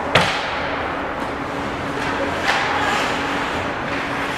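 Indoor ice rink during hockey play: a steady hum and haze of arena noise, broken by a sharp crack just after the start and a softer knock about two and a half seconds in, typical of a puck or sticks striking.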